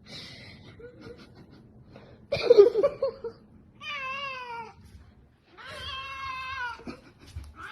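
A cat meowing: a louder, rougher cry about two seconds in, then three drawn-out meows, the first wavering and the second the longest at about a second.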